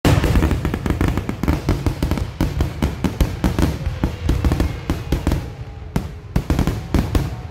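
Aerial fireworks shells bursting in a rapid barrage of overlapping bangs and crackle, thinning to fewer, separate bangs about six seconds in.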